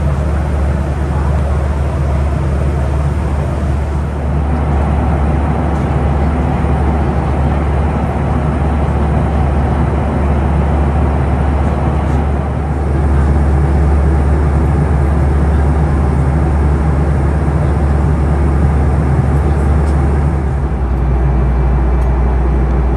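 Steady cabin noise inside a Boeing 737-400, from its CFM56-3 jet engines and the airflow, a loud even rumble with a low hum. It gets somewhat louder about halfway through.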